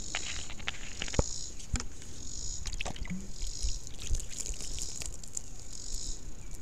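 Water poured from a plastic bottle splashing over a hand and dripping onto the ground, with scattered sharp clicks. Insects call in stretches in the background.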